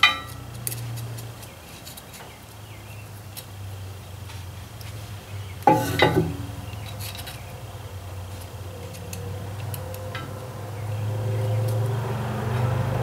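Hands working sealant around a tractor's axle hub flange: faint scrapes and small metal clicks against the wheel studs and flange, with a sharper metal knock at the start and another about six seconds in. A steady low hum runs underneath and grows louder near the end.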